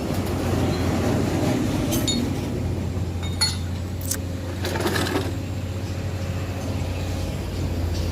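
Sharp metallic clinks of tools and parts being handled, a handful scattered over several seconds, over a steady low hum, during work on a truck's wheel hub.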